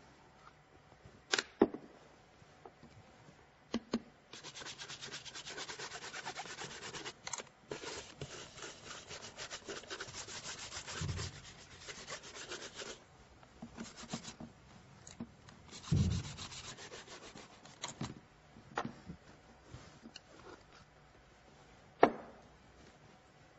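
Fast back-and-forth brushing over a leather shoe, a long run of quick even strokes followed by a shorter one. A few sharp knocks of the shoe and tools being set down on the table, the loudest near the end.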